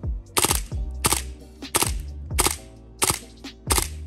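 Background music with a steady beat: a sharp hit with a deep bass note falling in pitch about every two-thirds of a second, over held tones.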